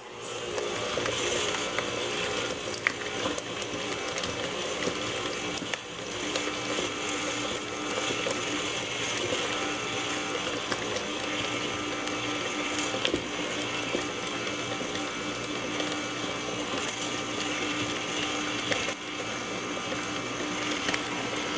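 KitchenAid stand mixer switching on and running steadily at medium-low speed, its flat beater turning through chunks of banana, butter, sugar and eggs in a stainless steel bowl.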